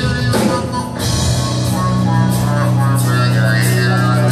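A live rock band playing on drum kit, bass guitar, electric guitar and keyboards. A cymbal crash comes about half a second in, and a long held low bass note starts a little under two seconds in.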